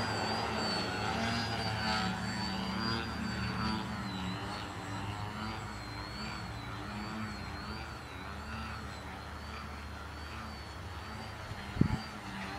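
Electric motor and propeller of a small foam RC 3D plane whining steadily as it hovers nose-up, the pitch wavering up and down with throttle corrections. A brief thump near the end.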